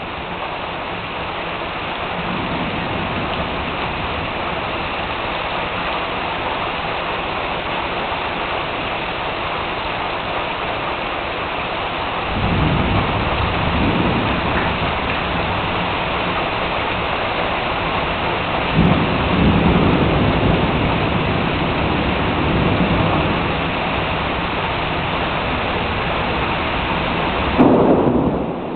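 Heavy rain pouring down steadily during a thunderstorm. Low thunder rumbles in about twelve seconds in and again several seconds later, and a sudden, loud thunderclap cracks near the end.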